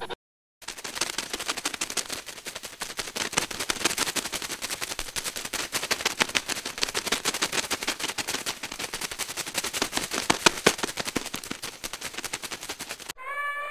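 Rapid, irregular crackling: a dense run of sharp clicks that starts about half a second in and stops abruptly just before the end.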